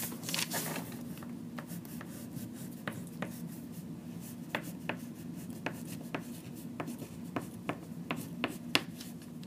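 Small plastic parts of a Lego Hero Factory Toxic Reaper figure clicking and snapping as they are fitted onto its joints: a couple of dozen short, irregular clicks over a steady low hum.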